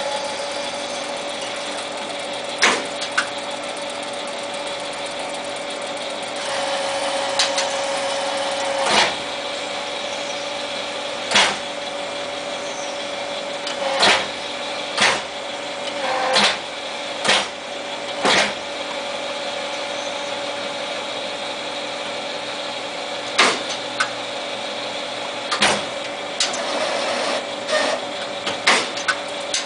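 Small Jet TL-25 turret lathe running with a steady hum, broken by about a dozen sharp metallic clunks at irregular spacing as the turret is indexed and the slide levers are worked by hand to machine a steel coupling.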